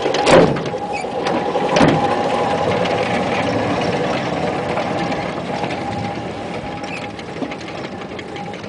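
1926 Whitcomb storage battery mine locomotive pulling away with a steady electric whine from its drive, along with the rumble of its wheels on narrow-gauge rail. Twice near the start the tow chain to the mine car snaps taut with a clank. The sound fades as it moves off.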